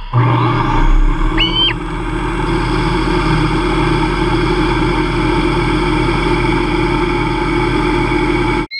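Hobby CNC lathe spindle running at 2500 RPM while a carbide insert takes a spring pass along an aluminum bar: a steady motor hum with several high whining tones, a couple of brief rising chirps about a second and a half in. The sound cuts off abruptly near the end.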